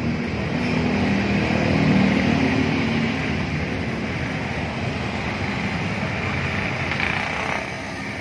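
Large coach bus's diesel engine running as the bus pulls in slowly, loudest about two seconds in, over steady road traffic noise. A short hiss near the end.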